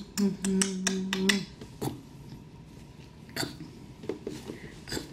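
A woman sings a wordless 'do do do' tune in short held notes for about the first second and a half. A few soft, short clicks or small sounds follow, spaced a second or so apart.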